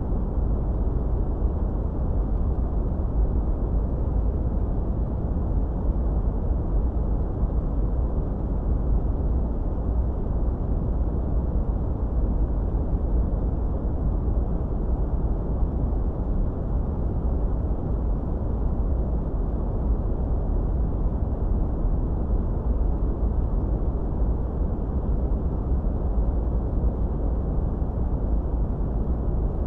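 Steady, deep noise from a tinnitus-masking noise track, weighted heavily to the bass with little hiss on top. It holds the same level and colour throughout with no changes.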